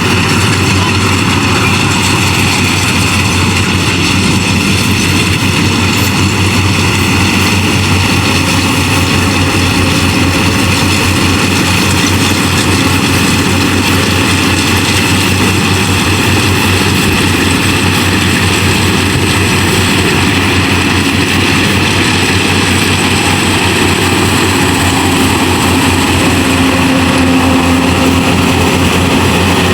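Yanmar AW70VW combine harvester running steadily as it harvests rice, its diesel engine and threshing machinery making a loud, continuous noise.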